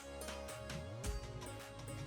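Background music with a steady beat and strong low bass hits.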